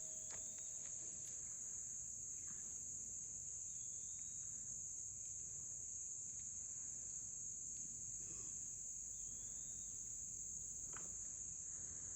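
Steady, shrill insect chorus running without a break, with a few faint short chirps over it.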